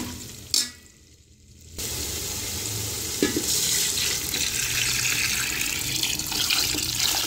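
Water poured from a jug into a steel pot of hot pea-and-potato masala, a steady splashing rush that starts about two seconds in.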